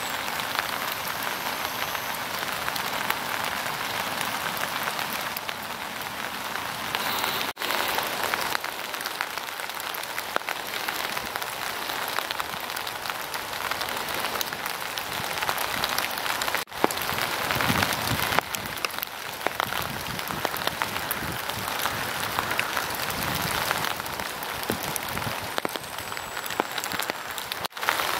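Steady rain falling, with many separate drops ticking.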